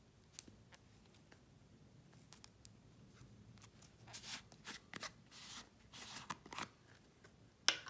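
Plastic screw-top lid of a slime tub being twisted open by hand: faint scratchy rasps and clicks of the lid threads and fingernails on the plastic, busiest from about four to seven seconds in, with one sharper click near the end.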